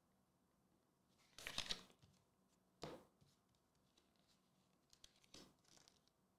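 Paper being handled on a tabletop: a loud brief rustle about a second and a half in, a shorter sharp one around three seconds, and softer rustles near the end.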